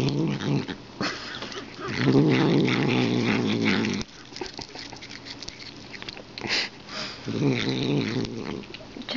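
A cat growling low while it bites and gnaws on a finger: three drawn-out growls, the middle one about two seconds long, with small chewing clicks and fur rustling between them.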